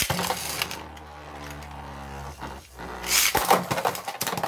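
Two Beyblade spinning tops launched into a plastic stadium: a short ripping rush from the launch, then a steady hum as they spin. About three seconds in they clash, with a quick run of loud clattering hits.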